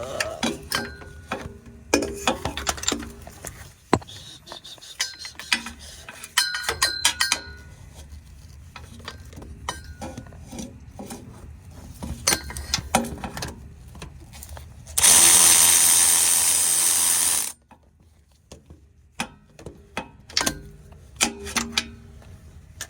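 Hand tools clicking and clinking on metal as a starter mounting bolt is worked loose, with ratchet-like clicks. About fifteen seconds in, a power tool runs loudly and steadily for about two and a half seconds, then cuts off suddenly as the bolt breaks free.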